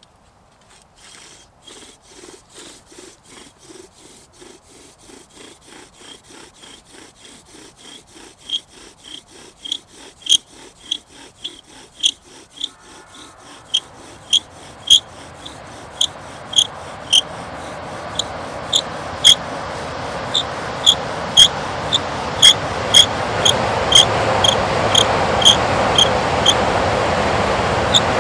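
Rhythmic rasping strokes on wood, about three a second, with sharp clicks. A rough noise builds steadily louder through the second half.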